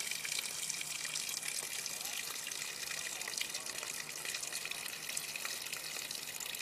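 Steady rush of running water, an even hiss without breaks.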